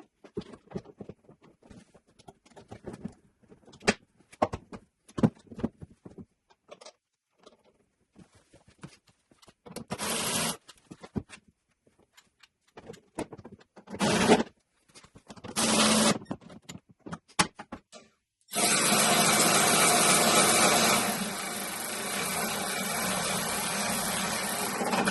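Clicks and knocks of tools and parts being handled, then three short bursts from a power tool and a longer steady run of it that drops a little in level partway through.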